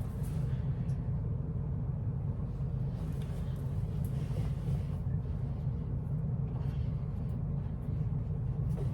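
A steady low rumble with no speech, its strength sitting in the deep bass.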